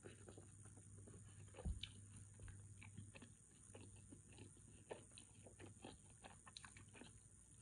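Faint, close chewing of coffee-soaked Haitian bread: soft wet mouth clicks, with a single low thump about a second and a half in.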